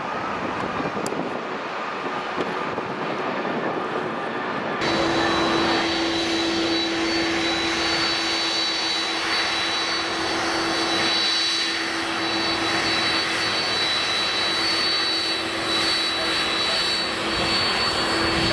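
Airliner engines running with a steady hum and a high, steady whine over a wide rush of noise. About five seconds in, the sound changes abruptly from a fainter, wind-like rumble.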